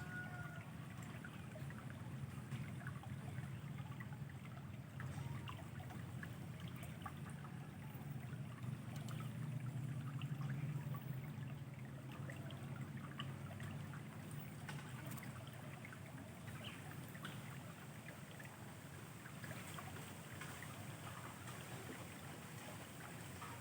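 Steady rush of flowing river water, with scattered small clicks over it.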